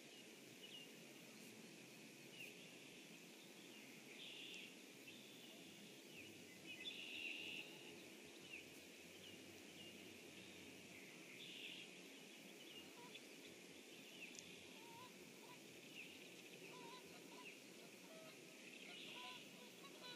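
Faint outdoor birdsong: many short chirps and brief song phrases from several small birds, over a steady background hiss.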